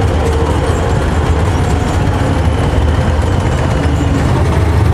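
Tracked armoured vehicles driving past at close range: heavy diesel engines giving a steady, loud low rumble, with the clatter and hiss of the tracks on the road.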